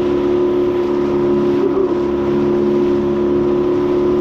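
Small fishing boat's engine running steadily under way, a constant drone over a hiss of water and air.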